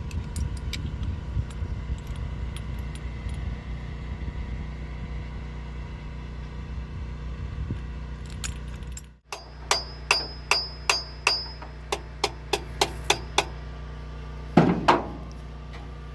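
A run of sharp metallic clicks and taps, about two a second, from hand work on the engine, over a steady low hum, with a louder knock near the end.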